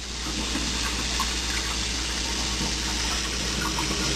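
Kitchen tap running in a steady rush of water.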